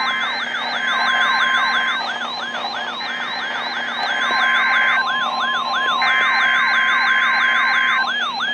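NOAA Weather Radio weekly test signalling: three bursts of buzzy SAME header data tones, each about two seconds long and a second apart, with a steady single alert tone running under and between them. Over it a siren-like alarm sweeps down in pitch again and again, about three times a second.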